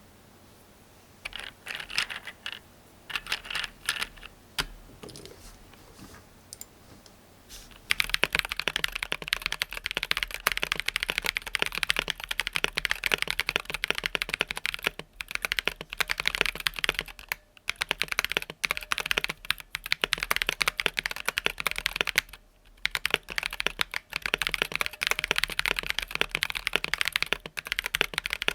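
Typing on a mechanical keyboard fitted with stock, unlubed Durock Sunflower POM T1 tactile switches (67 g): a few slow, scattered keystrokes at first, then fast continuous typing from about eight seconds in, with brief pauses twice. The unlubed switches carry a slight rattle and spring ping, which the uploader says lubing tames.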